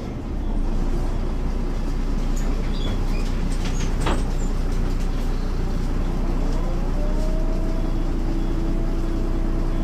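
MAN NL202 city bus with its MAN D08 diesel engine running, a steady low rumble. A sharp click comes about four seconds in, and about six seconds in a whine rises in pitch and then holds steady.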